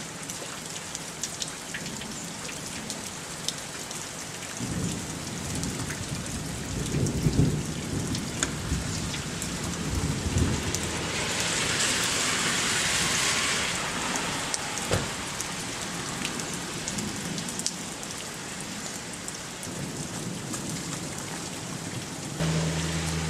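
Steady rain falling, with scattered drops ticking close by and a stretch of louder hiss about halfway through. A low rumble of thunder rolls for several seconds early on, and near the end a low engine hum starts up.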